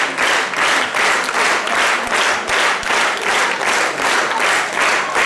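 Audience applauding, clapping together in a steady rhythm of about three claps a second.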